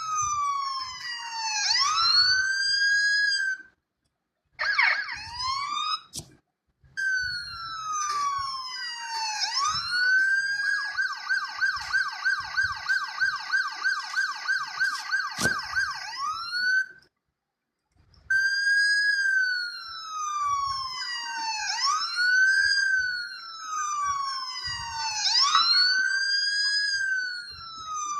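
Emergency-vehicle siren sounding a slow wail that falls and rises every few seconds, switching to a fast yelp, about four to five warbles a second, for about five seconds in the middle. It cuts off abruptly into silence three times and restarts.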